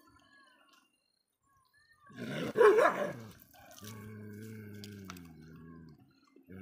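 A dog gives a loud, rough bark-and-snarl burst about two seconds in, followed by a low, drawn-out, steady sound that lasts about two seconds.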